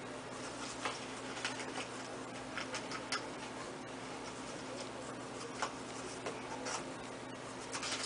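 Mechanical pencil sketching on sketchbook paper in quick, short feather strokes: irregular scratches and light ticks of the lead, several a second at times, over a faint steady hum.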